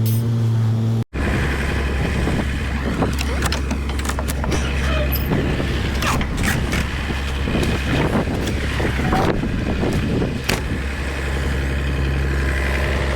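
A vehicle engine running steadily, heard from inside the cab. About a second in the sound cuts out for an instant, and a different steady engine hum follows with many scattered clicks and rattles.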